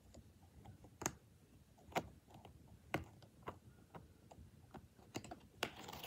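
Faint, scattered clicks from the stiff pages of a picture book being handled, then louder paper clicks and a rustle near the end as a page is turned.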